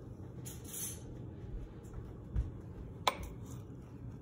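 A metal spoon scraping and digging into frozen ice cream in a plastic blender cup, with a sharp click about three seconds in as the spoon knocks against the cup.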